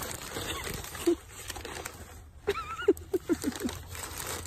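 Paper burger wrapper crinkling and rustling as it is handled, then a burst of high-pitched giggling, about six quick pulses, past the middle.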